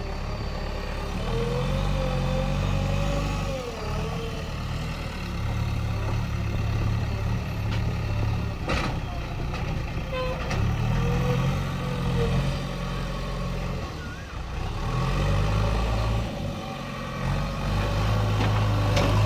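Heavy diesel machinery engine running at a work site, its low note swelling and easing as the load changes, with a single sharp knock about nine seconds in.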